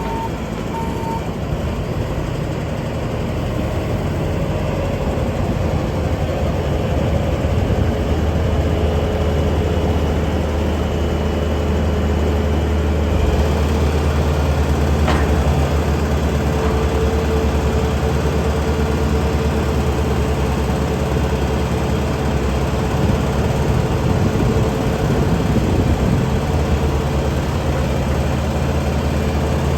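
Bobcat T740 skid steer's four-cylinder turbo-diesel engine running steadily, growing a little louder over the first several seconds and then holding even.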